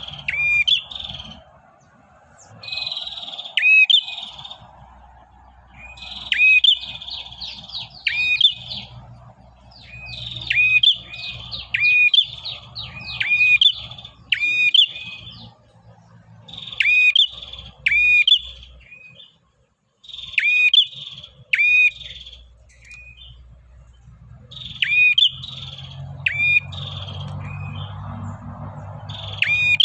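Male prenjak, a small songbird, singing its rapid chattering 'ngacor' call to attract a female. It comes in repeated bursts of sharp, hooked, high chirps every second or two, with short pauses between them.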